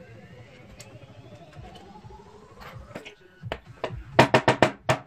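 Quick run of sharp metallic taps and clicks, about eight a second near the end, as pliers work on an aluminium LED bulb heatsink.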